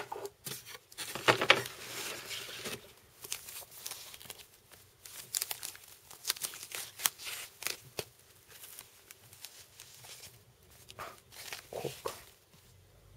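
Clear plastic bag crinkling and rustling as it is handled, in irregular bursts with small clicks. It is loudest in the first two seconds and quieter after.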